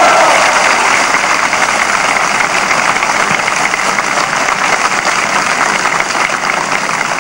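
Large crowd of students applauding steadily in an old archival recording of an open-air speech, easing off slightly toward the end.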